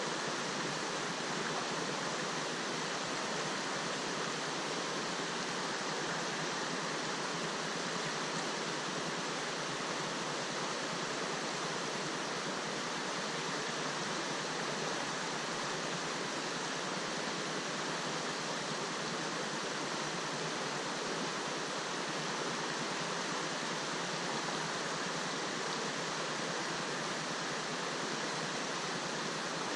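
River water rushing steadily, an even wash of noise that does not change.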